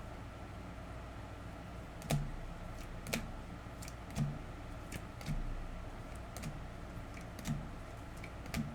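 Light, sharp clicks and taps, about one a second and unevenly spaced, over a low steady background hum.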